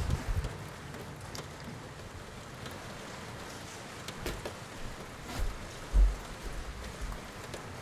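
Steady rain falling, with a few dull low thumps about four, five and six seconds in; the last thump is the loudest.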